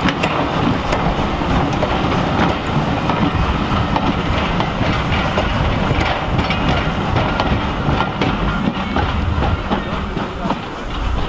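Rake of steam-hauled passenger coaches rolling past close by, with a steady rumble and wheels clicking over the rail joints.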